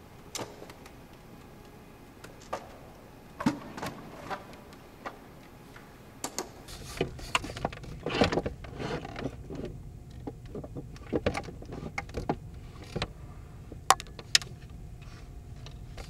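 Irregular clicks and knocks of handled plastic parts, sparse at first and busier from about six seconds in, when a low rumble joins them.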